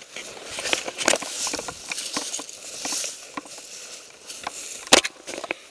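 Footsteps and the rustle of clothing and gear moving through dry brush, with scattered clicks and knocks and one sharp, loud knock about five seconds in.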